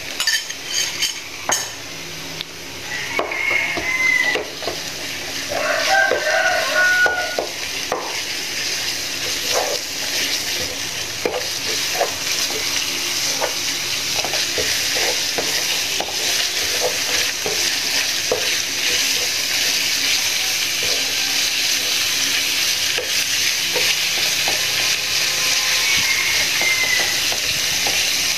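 Minced pork sizzling in hot oil with fried shallots and garlic in a nonstick frying pan, stirred and broken up with a wooden spatula that knocks and scrapes against the pan. The sizzle grows louder over the first several seconds as the meat spreads out, then holds steady.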